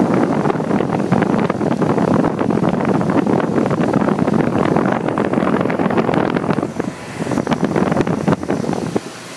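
Rough air buffeting on the microphone over a central air conditioner's outdoor condenser unit running in cooling mode. The buffeting eases about seven seconds in and drops away just before the end.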